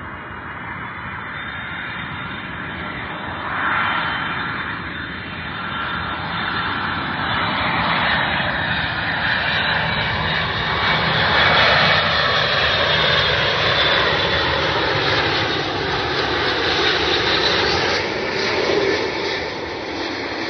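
Boeing 747 cargo jet on low final approach with landing gear down, its four jet engines running and growing louder as it comes in, loudest from about halfway through as it passes close overhead. Sweeping changes in tone mark the aircraft moving past.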